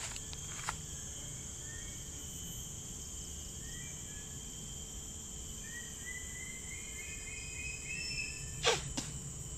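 Forest insects droning steadily at a high pitch, with short bird chirps in the middle. Near the end come two short sharp sounds about a third of a second apart.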